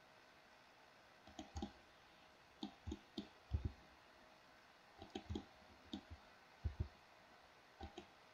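Computer mouse and keyboard clicks: about fifteen short, sharp clicks in small irregular clusters, starting a little over a second in.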